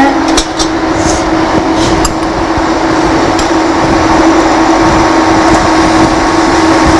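Loud steady electrical hiss and buzz with a constant low hum on a clip-on microphone, distortion caused by a heart pacemaker. It gets a little louder about halfway through.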